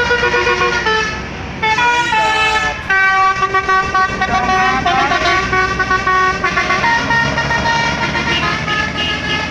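Bus telolet horn playing a tune of held multi-tone notes that shift in pitch every second or so, with a short break about one and a half seconds in and a falling slide soon after; a low rumble runs underneath.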